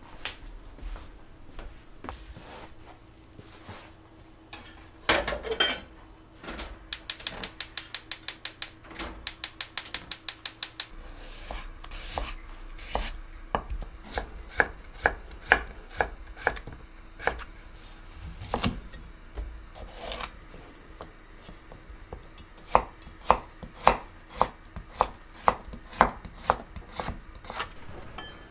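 Kitchen knife cutting daikon radish into sticks on a wooden cutting board. A fast, even run of chopping strokes, about five a second, comes a few seconds in, then slower irregular cuts, then a steadier run of about two strokes a second near the end.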